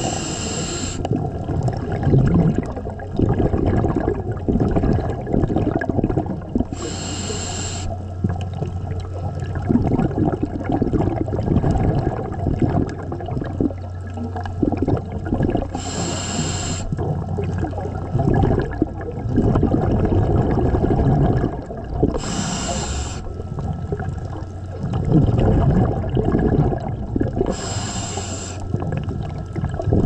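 Scuba diver breathing through a regulator underwater: five short hisses of inhaled air, several seconds apart, with the low bubbling rumble of exhaled bubbles between them.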